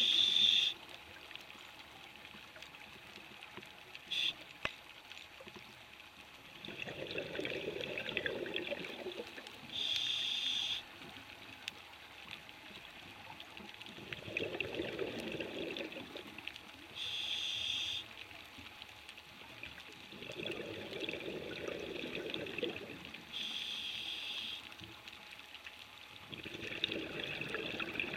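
Scuba diver breathing through a regulator underwater: a short hiss of the demand valve on each inhale, then a rush of exhaust bubbles lasting two to three seconds on each exhale, repeating about every six or seven seconds.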